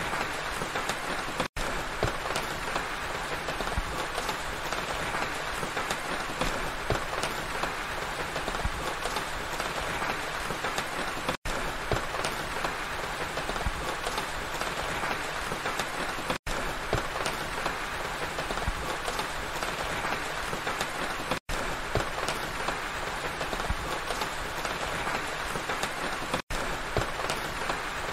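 Steady rain falling, cutting out for an instant five times.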